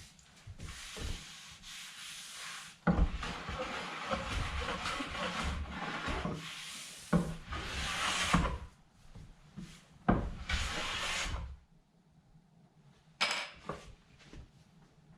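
Wood being worked by hand: long rubbing, scraping passes over the surface, each starting sharply, the last ending about two-thirds of the way in. A few light wooden knocks follow near the end.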